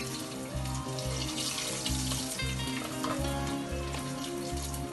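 Aloo tikki (potato patties) sizzling as they fry in hot oil in a kadhai, the sizzle swelling about a second and a half in. Background music with a steady beat plays underneath.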